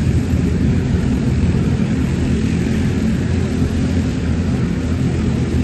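A steady, loud, low engine drone with an even hiss above it, holding constant without change.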